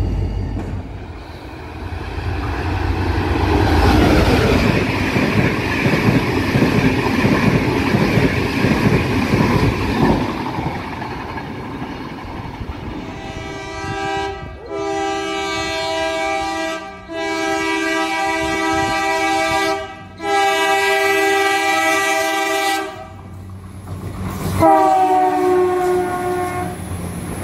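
Container wagons rolling past with a steady rumble and wheel clatter. Then an Irish Rail InterCity diesel railcar sounds its multi-tone horn in four long blasts, and a last blast as it passes that bends down in pitch.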